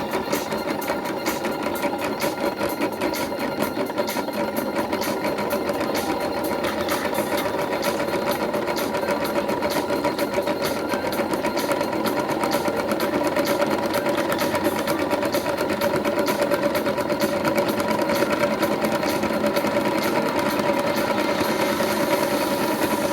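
Toy washing machine's small electric motor running steadily, a whirring hum with a fast, even rattle.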